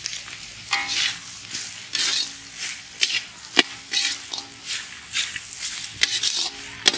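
A perforated steel ladle scraping and tossing noodles and mutton around a large iron kadai while the food sizzles in hot oil, in repeated strokes about once a second. The ladle knocks sharply against the pan a few times.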